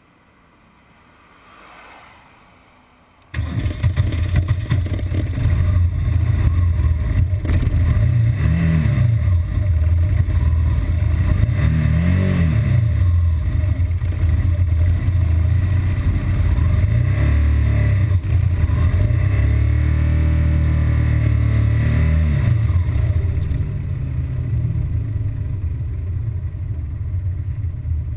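BMW R1200GS Adventure's flat-twin boxer engine, quiet for about three seconds, then abruptly running loud with rushing noise over it. The revs rise and fall several times, on a bike with an intermittent stalling and rough-idle fault.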